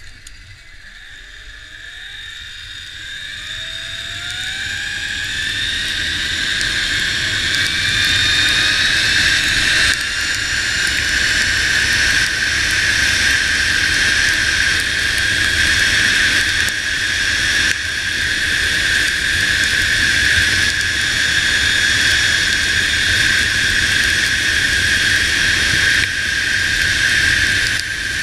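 Zipline trolley pulleys running along the steel cable. Their whine rises in pitch and grows louder as the rider picks up speed over the first several seconds, then holds steady at speed, with wind rushing on the microphone.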